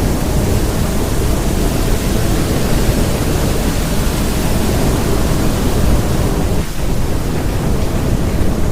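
Storm sound effect: a loud, steady rushing with a deep rumble underneath, briefly easing about seven seconds in.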